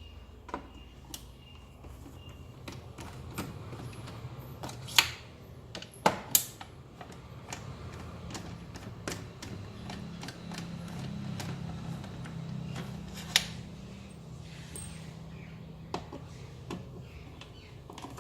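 Scattered clicks and knocks of small plastic and metal parts being handled while an Xbox One console is taken apart. A few sharper knocks stand out, about five, six and thirteen seconds in, over a low steady hum.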